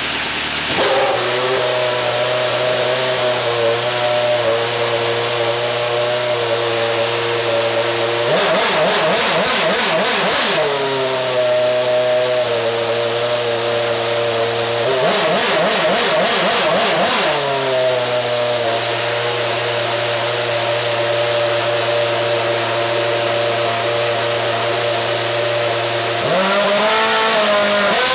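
Formula 1 car's Renault V8 engine running on the spot, held at steady revs that step to a new pitch every few seconds. Two stretches of rapid blipping come about 8 and 15 seconds in, and the pitch shifts again near the end.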